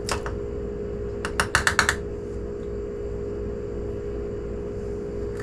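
A quick run of about six sharp clicks and taps, hard kitchen tools against the glass canning jar as the cookie-mix layers are packed down, with a single click just before. A steady background hum runs underneath.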